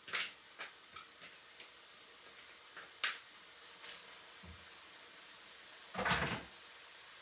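A red plastic colander knocking lightly against the rim of a wok several times as shredded cabbage and bean sprouts are shaken out of it, then a louder short clatter about six seconds in as the colander is put down in the kitchen sink.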